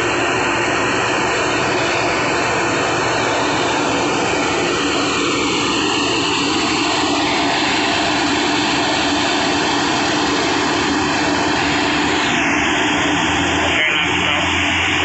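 Steady, loud drone of heavy construction machinery running without a break. A low hum grows slightly stronger near the end.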